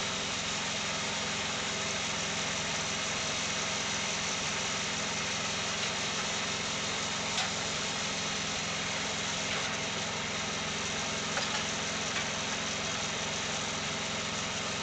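Engine of a Wood-Mizer portable band sawmill running steadily, with a few faint clicks over it.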